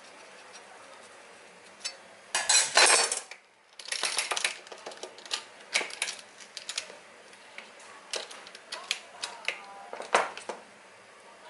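Clicks, scrapes and rattles of a metal springform pan being worked on a stainless steel counter as its edge is loosened, its clasp opened and the ring eased off. A dense burst of rattling comes about two and a half seconds in, followed by scattered sharp clicks.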